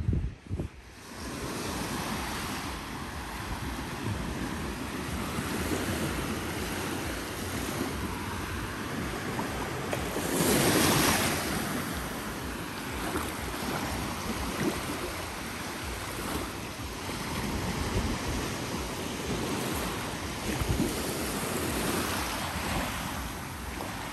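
Small sea waves breaking and washing up the sand in a steady surf, with one louder wash about ten seconds in. Wind buffets the microphone.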